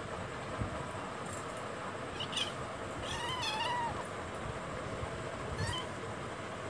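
A kitten mewing three times: a short high mew about two seconds in, a longer wavering mew around three seconds, and a brief rising mew near the end, over a steady background hiss.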